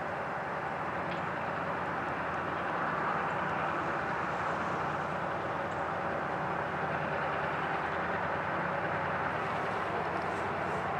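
Freight train running steadily past, a constant rolling rumble of railcars with a low steady engine hum beneath.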